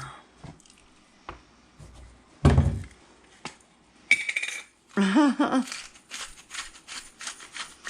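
Kitchen oven being loaded: the oven door shuts with a single heavy thunk about two and a half seconds in. Then comes a short ringing metallic clink and a run of light clicks and knocks of pans and utensils.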